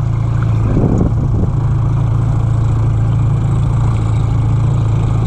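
Boat engine running steadily while trolling: an even low hum with a wash of noise over it.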